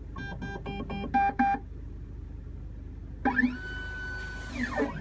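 Futura NA key machine starting its key-reading cycle: a quick run of short pitched tones, then its motors whine, rising in pitch, holding, and falling again about three seconds in as the mechanism moves to read the key.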